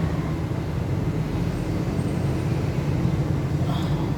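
Steady low rumble of motor-vehicle engines, with a light click near the end.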